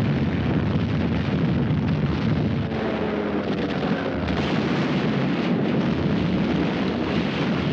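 Combat sound effects: a continuous rumbling din of explosions and gunfire.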